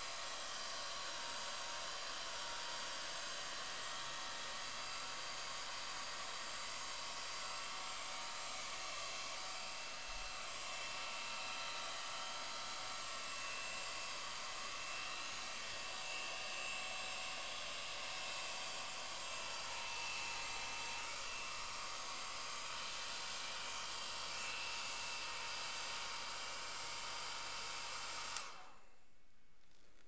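Hair dryer running steadily, a rushing blow with steady whining tones from its motor and fan, cutting off abruptly near the end.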